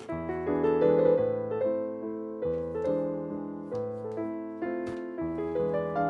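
Background piano music: a gentle melody of struck notes that ring and fade, with chords changing every half second or so.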